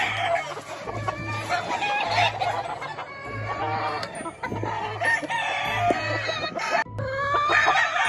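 Gamefowl roosters crowing and hens clucking, over background music with a steady low beat about once a second.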